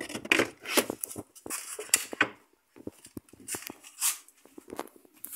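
Handling noise: the phone's microphone rubbing against a cotton T-shirt, an irregular run of rustles and short light knocks.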